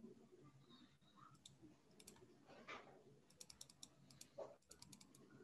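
Faint clicking from a computer keyboard and mouse: a few single clicks, then quick runs of several key presses.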